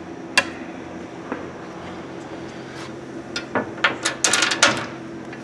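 Hands working parts of a Hardinge HLV-EV tool room lathe: a few separate metallic clicks, then a rapid run of clacks and knocks between about three and a half and five seconds in, over a steady low hum.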